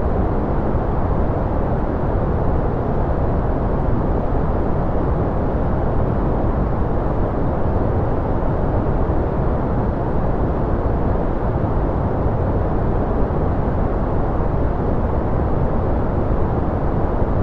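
Continuous noise-masking track: a steady, even rush that is deep rather than hissy, with most of its energy in the bass and lower mids and little treble. It does not change at all.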